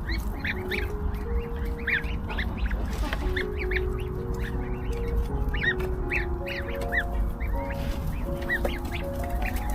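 Newly hatched goslings peeping: many short, high, arching chirps, coming quickly and overlapping.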